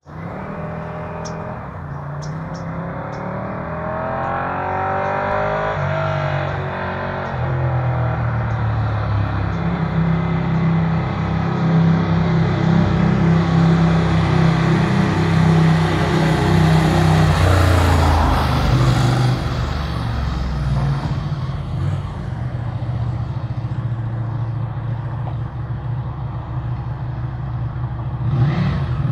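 Ducati Panigale sport motorcycle engine approaching, its note gliding up in pitch as it revs early on and growing louder to a peak about halfway through. It eases off after that and swells again near the end.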